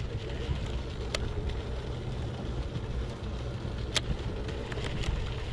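Steady low rumble of the fishing boat with wind on the microphone, while a baitcasting reel is cranked fast on a lure retrieve. Two short sharp clicks about one and four seconds in.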